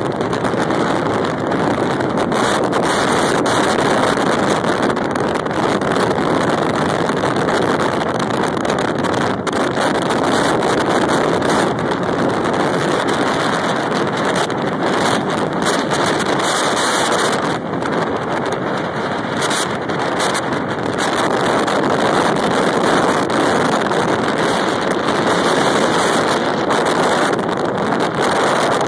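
Strong storm wind buffeting the phone's microphone over heavy surf breaking on a rocky shore: a loud, steady rushing noise that eases slightly for a few seconds past the middle.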